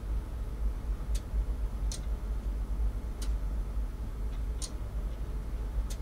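Steady low rumble of a cargo ship underway, heard inside its bridge. Sharp, light ticks come over it about once a second at uneven spacing.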